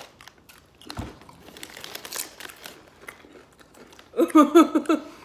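Potato chip bag crinkling and chips crunching as they are handled and bitten, with a sharp knock about a second in. About four seconds in comes a loud burst of a person's voice in quick short pulses.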